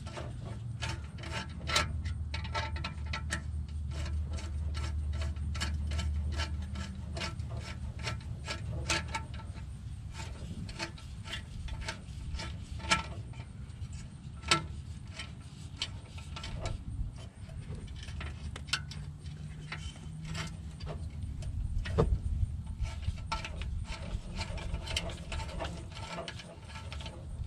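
Worm-drive hose clamp being tightened with a screwdriver around an exhaust tailpipe: many sharp, irregular clicks as the screw ratchets over the band's slots.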